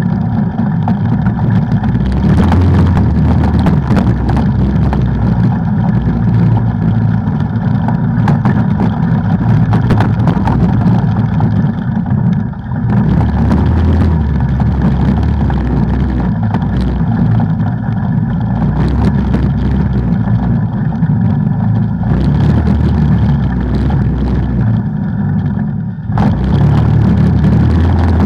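Off-road vehicle engine running steadily under throttle while riding a trail. The throttle eases off briefly about twelve seconds in and again a couple of seconds before the end.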